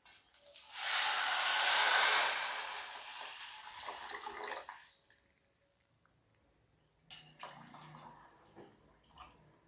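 Water poured from a steel glass into an aluminium pot of rice, moong dal and peas: a splashing pour starting about a second in, loudest early and tapering off over about four seconds. A few fainter splashes and clinks follow near the end as more water goes in.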